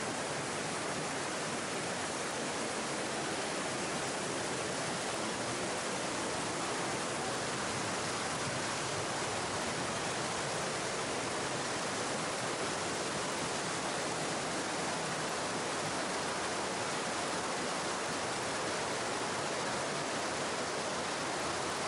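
Steady rushing of a mountain stream cascading through a gorge over small waterfalls.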